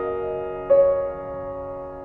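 Slow background piano music: held chords, with a new chord struck just under a second in that fades away.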